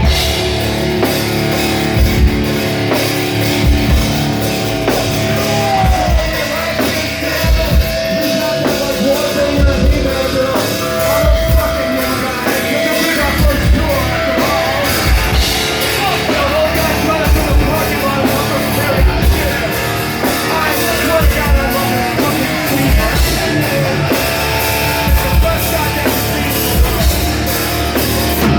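Heavy metal band playing live: sustained electric guitar chords over bass, with a kick drum hitting at a slow, even beat.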